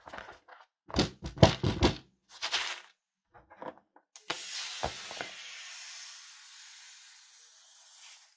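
Latex balloon squeaking and rubbing under the fingers as it is handled, then a scissors snip at its neck. Air hisses steadily out of the cut balloon for about four seconds, fading as it empties, and stops suddenly near the end.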